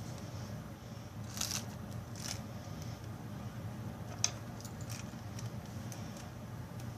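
A few sharp clicks and short scrapes of hard parts being handled by hand, over a steady low hum.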